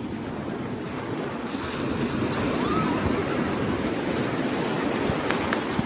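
Surf washing onto a sandy beach, a steady rushing noise, with wind buffeting the microphone. A short faint pitched call about halfway through.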